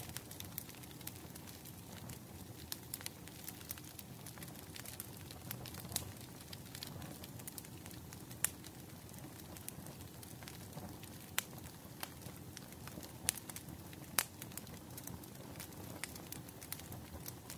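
Wood fire crackling: a steady low rumble of burning with irregular sharp pops and snaps, two louder pops about halfway through and near the end.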